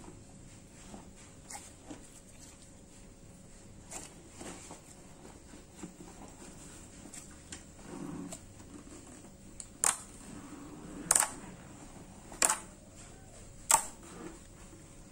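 Thick, glossy glue-based slime being squished and kneaded by hand, with soft wet clicks and crackles, then four loud sharp pops a little over a second apart in the second half as fingers poke holes into it and burst trapped air.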